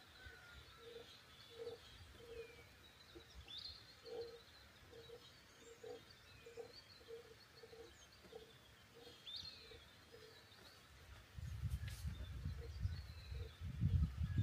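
Birds calling: short high chirps that slide downward every couple of seconds, over a run of short low notes repeating about once or twice a second. About three-quarters of the way through a loud low rumble sets in.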